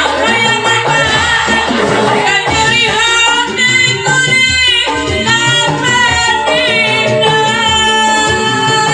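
A woman sings a Sundanese song into a microphone, with bending, ornamented notes, over loud amplified backing music.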